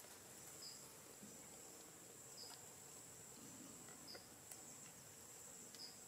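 Faint insect chorus: a steady high-pitched trill, with a short high chirp repeating about every second and a half.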